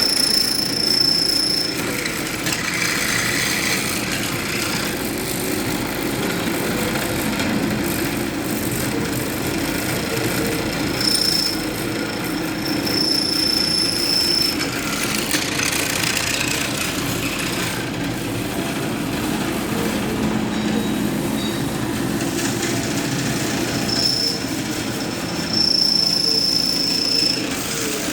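Automatic drilling machine running steadily, with a high squeal that comes and goes about every twelve seconds, each stretch lasting a second or two.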